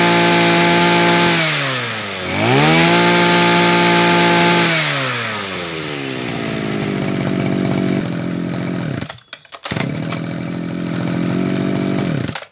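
Makita EM227 brush cutter's two-stroke engine running at high revs. It drops once and revs back up, then falls to a steady idle about five seconds in, and cuts out abruptly near the end.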